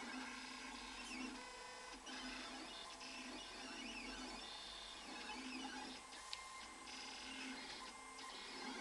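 Secabo C60IV vinyl cutting plotter at work: its motors whine in short rising and falling sweeps that start and stop as the cutting head moves over the sheet.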